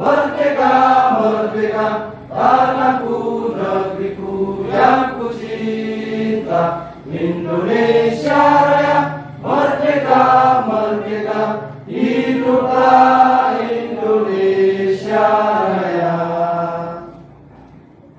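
A group of people singing together in unison, in phrases of long held notes. The singing dies away near the end.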